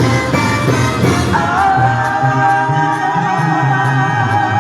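Spanish-language song playing. About a second in, a singer holds a long, wavering note over a steady, repeating bass line.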